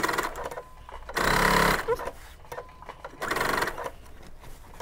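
Domestic sewing machine running in three short bursts with pauses between, the middle one about a second in being the loudest. It is stitching a straight seam through fabric right alongside a zipper.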